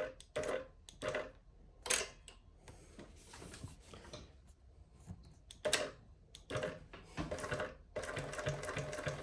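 Jack JK-58750B-005C direct-drive twin-needle lockstitch sewing machine. A few separate clicks and knocks come first, then about eight seconds in the machine starts stitching with a steady, rapid run.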